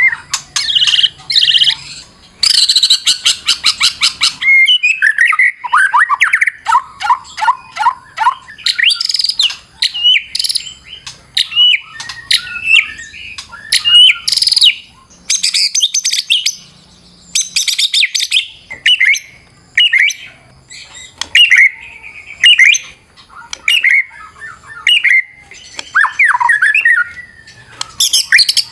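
White-rumped shama singing a fast, varied song of whistles, trills and quick runs of falling notes, with a buzzy rattle about two and a half seconds in.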